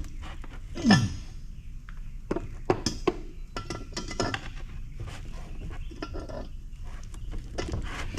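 Hand tools clicking, clinking and knocking against the metal and plastic parts of a thermoelectric cooler as stiff screws are worked by hand in a cramped spot. About a second in there is a short, loud sound that falls in pitch.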